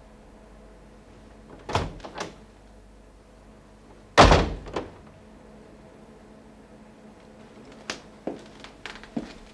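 A wooden room door pushed shut with one heavy thud about four seconds in, after two lighter knocks a couple of seconds earlier. A few faint clicks follow near the end.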